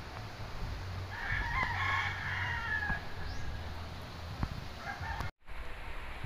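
A rooster crowing once, a long call of about two seconds, followed by a shorter, fainter call near the end.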